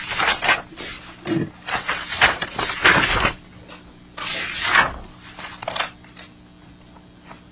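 Irregular rustling and knocking of papers and folders being handled and set down, dying away about six seconds in, over a faint steady electrical hum.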